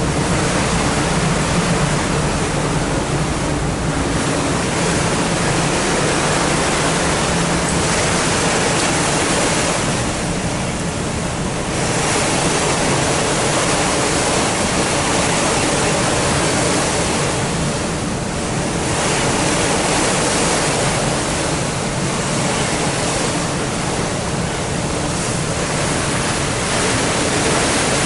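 Steady rushing noise of wind and water on a moving car ferry, with a low engine hum that fades after the first few seconds.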